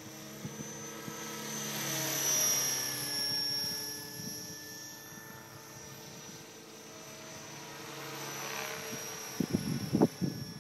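Electric Align T-Rex 600 radio-controlled helicopter flying overhead: a steady high motor and rotor whine that swells about two seconds in and again near the end as it passes nearer. A few sharp low thumps come in the last second.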